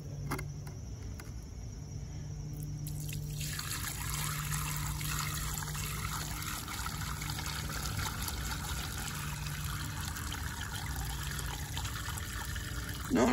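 Rusty flush water from a water heater being poured out of a five-gallon plastic bucket onto the ground: a thin trickle at first, becoming a steady pour about three and a half seconds in.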